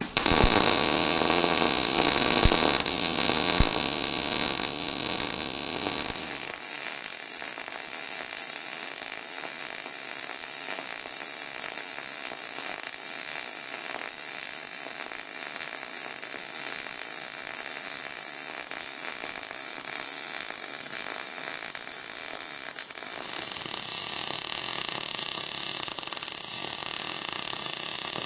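MAG (gas-shielded wire) welding arc running steadily as a vertical-up weave bead is laid on 3 mm steel sheets with an air gap, at about 62 amps and 16 volts. It gives a steady hiss, louder for the first six seconds or so.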